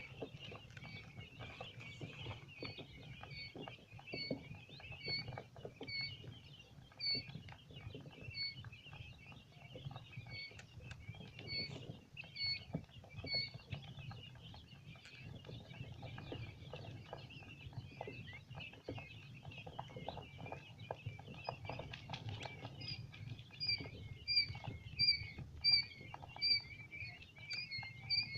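A brood of four-day-old quail chicks peeping and chirping continuously, with short high peeps that grow louder and more frequent about two-thirds of the way through. Small clicks and scratching of the chicks moving run throughout, over a steady low hum.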